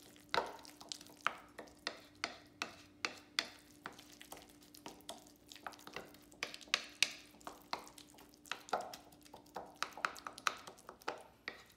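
Wooden spatula stirring and mashing guacamole in a bowl, with repeated sharp, irregular knocks and clicks of the spatula against the bowl, about two to three a second.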